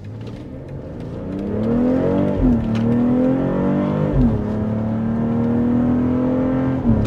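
BMW X3 M40i's turbocharged B58 inline-six accelerating hard in Sport Plus, its note climbing through the gears. The torque-converter automatic upshifts at about two and a half and four seconds in, each a quick drop in pitch, and there is another drop just before the end.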